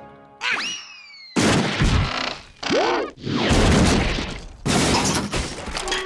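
Cartoon sound effects of a heavy boulder being tossed: a falling whistle, then a series of loud crashes and smashing, with a short rising-and-falling whistle between them, over music.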